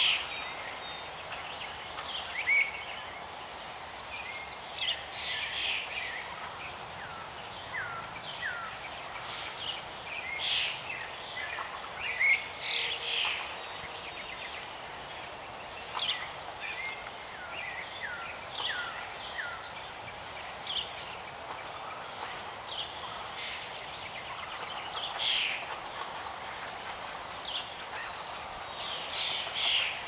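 Several birds chirping and calling in short, scattered notes, with a few quick series of short falling whistles, over a steady outdoor background hiss.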